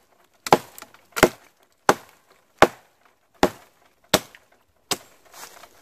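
Hatchet chopping into a knot on a downed pine tree: seven sharp strikes, about one every three-quarters of a second.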